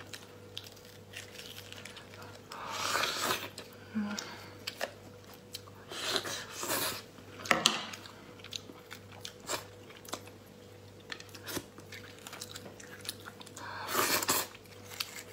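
Cooked lobster shell being cracked and pulled apart by hand, with scattered clicks and crunches, mixed with chewing and wet mouth sounds as the meat is eaten. The loudest bursts come about three seconds in, around six to seven seconds in, and near the end.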